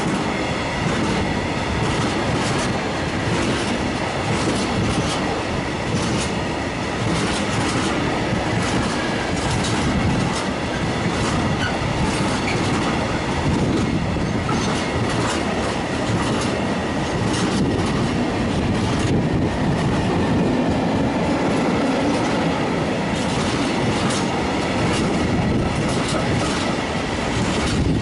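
Freight train of empty container flat wagons passing close by: a steady rumble of wheels on rail, with quick irregular clicks as the wheels cross rail joints, and a thin steady high ring running through it.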